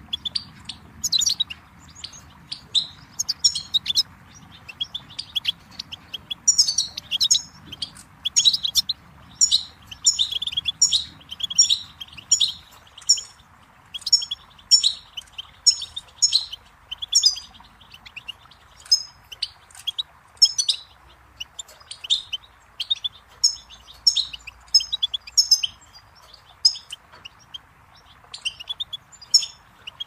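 European goldfinch singing: quick runs of high twittering and trilled notes, broken by short pauses, over a steady rush of flowing water.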